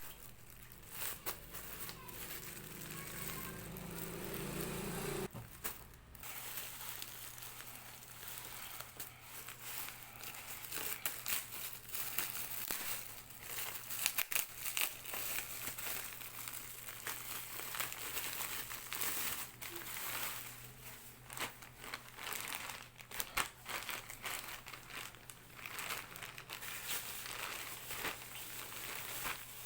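Packaging being handled while a football shirt is unboxed: irregular crinkling and rustling. A low hum in the first five seconds stops suddenly.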